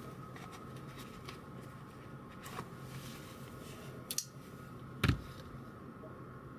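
Folding knives being handled: a few light clicks, a sharp double click about four seconds in, and a louder knock with a low thud about a second later, over a steady low room hum.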